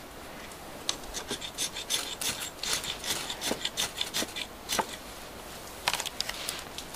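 Fire steel (ferrocerium rod) scraped with a striker in a rapid run of short rasping strokes to throw sparks onto tinder. A few more scrapes come near the end, as the tinder catches.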